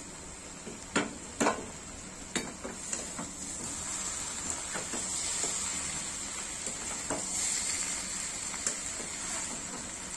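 Cabbage, potato and fish-head curry sizzling in a metal kadai as a metal spatula stirs it, with sharp knocks of the spatula against the pan in the first couple of seconds and lighter scrapes and clicks after. The cabbage is frying down and nearly done.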